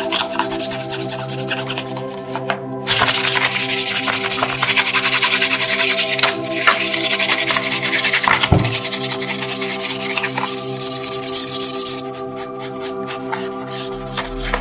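Small brush scrubbing a soapy perforated grille panel in quick, scratchy strokes, louder from about three seconds in until about twelve seconds.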